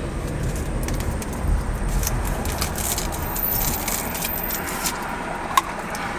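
Low rumble of a car heard from inside the cabin, with scattered light clicks and rustles of things being handled.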